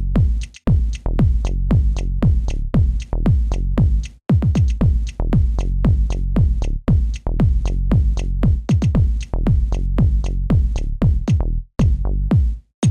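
Electronic background music with a driving beat of falling synth kick drums, about two to three hits a second, briefly dropping out a few times.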